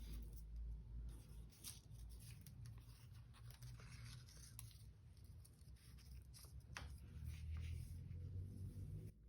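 Faint handling of paper and craft materials on a work table: irregular light scratches, rustles and small clicks over a steady low hum.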